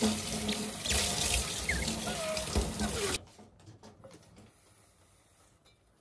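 Kitchen tap running into the sink while a steel bowl is rinsed under it, with a few short squeaks over the water. The water shuts off suddenly about three seconds in, leaving only faint handling sounds.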